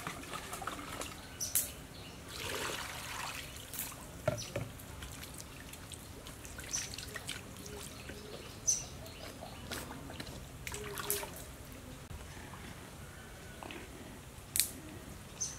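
Water splashing, trickling and dripping as raw chicken is washed by hand in a metal basin of water, with scattered short splashes and knocks and a longer stretch of pouring about two to three seconds in.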